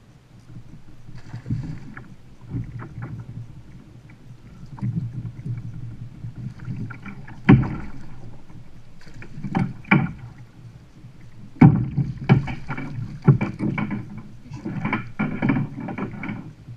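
A large gar thrashing at the side of a plastic fishing kayak while hooked on rod and reel, splashing and slapping the water in irregular bursts. There are sharp slaps and knocks, a few near the middle and a rapid cluster near the end.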